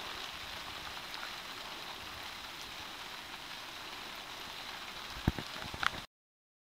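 Steady rain falling on a camouflage tarp and the wet ground around it. A couple of sharp knocks come near the end, then the sound cuts off suddenly.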